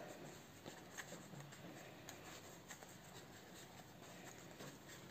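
Near silence, with faint light rustling and small ticks from hands handling a tomato seedling in a plastic pot.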